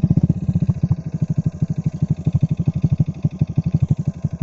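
Honda XRM 125 FI's single-cylinder four-stroke engine idling steadily through a Taikom aftermarket exhaust pipe with its silencer insert removed, an even, rapid popping beat.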